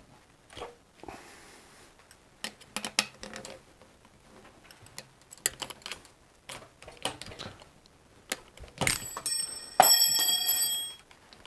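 Metal tools clicking and knocking against a bicycle's adjustable handlebar stem as it is worked with a wrench. Near the end come two sharp metallic hits, and the second rings out for about a second.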